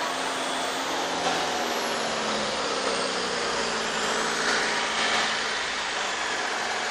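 Suspended monorail car of the Wuppertal Schwebebahn running along its rail directly overhead: a steady rumble of steel wheels on the track, with a faint whine that falls in pitch over the first few seconds.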